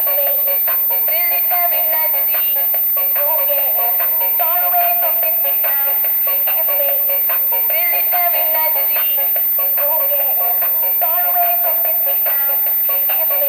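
Background music: a melodic tune with a steady beat, sitting in the middle and upper range with almost no bass.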